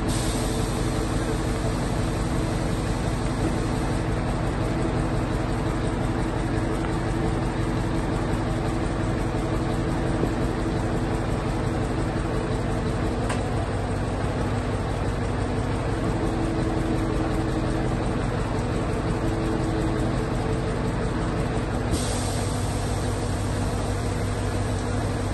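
Scania truck's diesel engine running steadily to power the hydraulics of its truck-mounted knuckle-boom crane as the crane lifts a load. The note changes slightly near the end.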